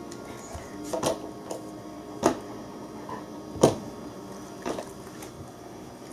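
A handful of short, sharp knocks and clacks, irregularly spaced, from a toddler handling a floor-mop handle against a metal wire pet gate. The loudest knock comes a little past the middle.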